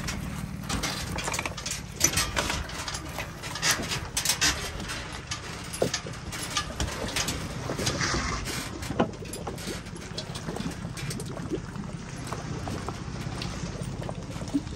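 Boat trailer backing down a concrete launch ramp into the water, with the tow vehicle's engine running low underneath. Water splashes and laps around the trailer and hull as they go in, busiest in the first half.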